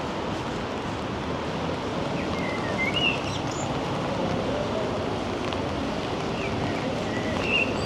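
Steady outdoor city noise, with a few short bird chirps about two to three seconds in and again near the end.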